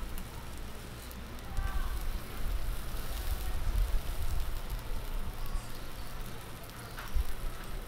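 Chicken and green-onion skewers sizzling and crackling on a hot grill grate, a steady hiss with a low rumble underneath.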